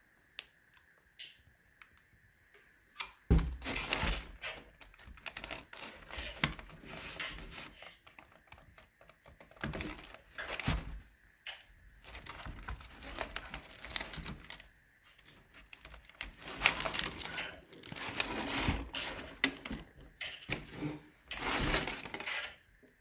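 Bicycle tyres being handled in a cardboard box: packing paper rustling and crinkling, with rubber and cardboard scraping and many irregular knocks and clicks. It starts about three seconds in and stops just before the end.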